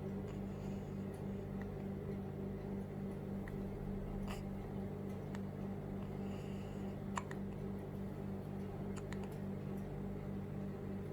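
Newborn baby hiccuping: a few short, sudden hics a few seconds apart, the sharpest about seven seconds in, over a steady low electrical hum.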